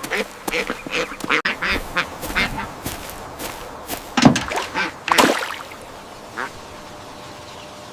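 Ducks quacking in a quick series of short calls, with two louder quacks about four and five seconds in, then dying away.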